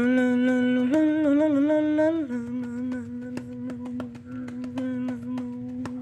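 A person humming one long, steady note. The pitch steps up and wavers about a second in, then drops back about two seconds later. Quick clicks run throughout.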